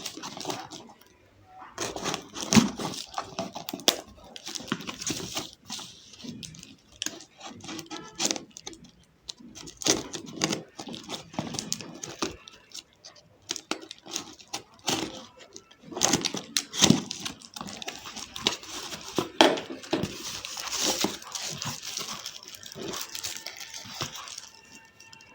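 Earphone packaging being handled and opened by hand: irregular crinkling, rustling and tearing of plastic and paper, with scattered clicks and knocks.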